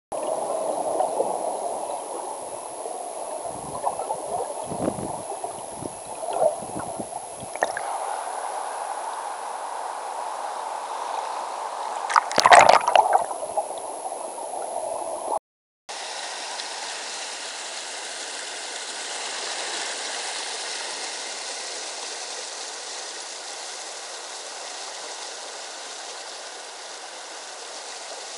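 River current rushing past an underwater camera: a steady rush of water with several dull low knocks and one loud burst lasting about a second near the middle. After a brief break, a steadier, brighter rush of water.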